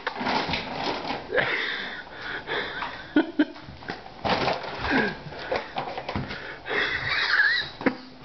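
A plastic dog food bag crinkling and rustling over a dog's head as she moves about and noses into it, with the dog snuffling inside the bag.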